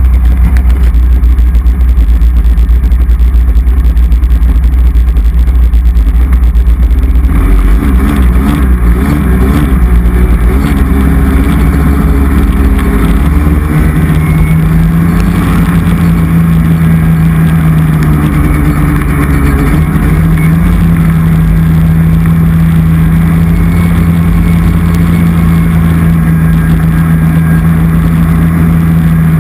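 Polaris snowmobile engine, heard from a camera on its hood. It runs with a heavy low rumble for the first several seconds, its pitch wavers as the sled gets moving about eight seconds in, and from about fourteen seconds it holds a steady drone at cruising speed.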